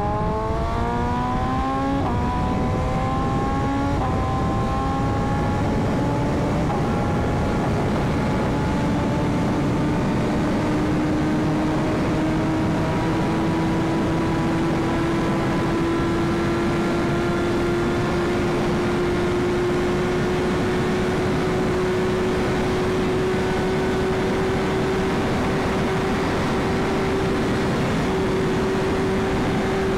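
BMW S1000RR inline-four engine accelerating hard, shifting up three times in quick succession in the first seven seconds, then pulling steadily with its pitch slowly rising. Wind noise rushes under it.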